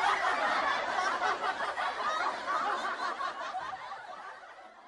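Several people laughing and chuckling, fading out toward the end.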